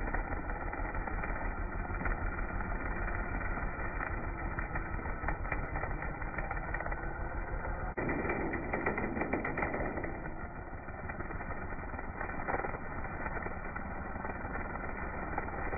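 Black Max 30cc four-cycle string trimmer running as its line cuts through thick grass, with scattered light ticks. The sound changes abruptly about halfway through.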